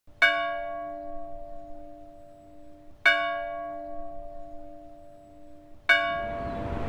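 A large bell struck three times, about three seconds apart, each stroke ringing on and slowly fading. Near the end a steady noise of city traffic rises under the last stroke.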